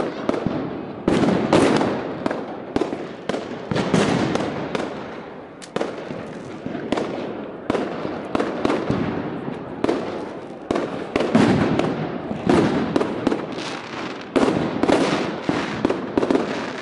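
Consumer fireworks and firecrackers going off all around, a dense run of irregular bangs and crackles one after another, each trailing off briefly in echo. The loudest bursts come about a second in, at about four seconds, and in a cluster from about eleven to sixteen seconds.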